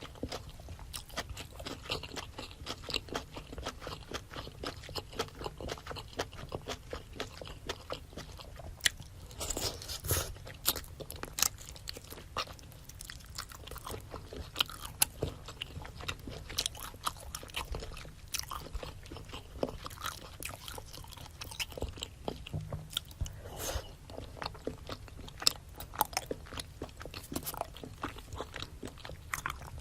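Close-miked chewing and biting of spicy seafood boil: a steady run of small mouth clicks and crunches, with a few louder bites along the way.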